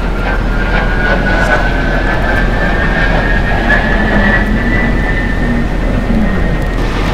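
Airplane engine noise: a loud, steady rush with a thin whine that climbs slowly in pitch.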